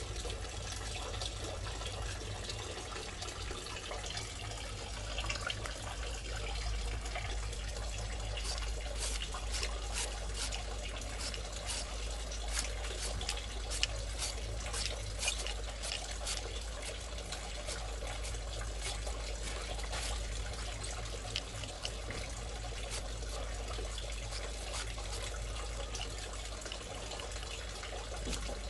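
Knife scraping the ridges and green skin off a luffa gourd: a run of short crisp scrapes, thickest in the middle of the stretch, over a steady hiss.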